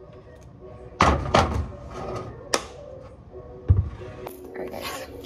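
Cookware clatter: a few sharp knocks of a utensil and pot against each other on a gas stove, then a rustling, scraping noise near the end as the rice mixture is worked in the pot.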